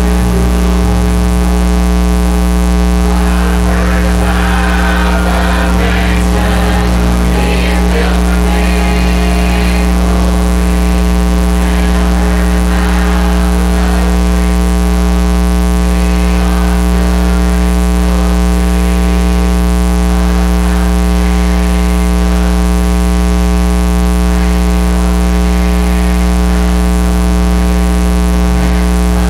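Loud, steady electrical mains hum and buzz over the whole recording, with a choir singing to piano and guitar accompaniment faintly beneath it.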